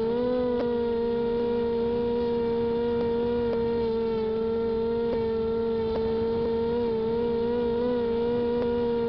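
Electric motors and propellers of a WLZX W500 multirotor drone running, heard close up from its onboard camera: a steady pitched whine. The whine rises slightly about half a second in and wavers a little near the end.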